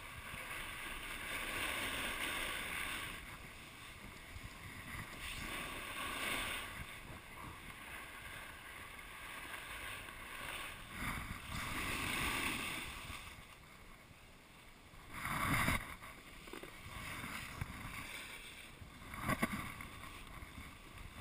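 Skiing or snowboarding edges scraping and swishing over packed snow, swelling with each turn, with wind noise on an action camera's microphone. A louder, sharper scrape comes about fifteen seconds in, and a shorter one near the end.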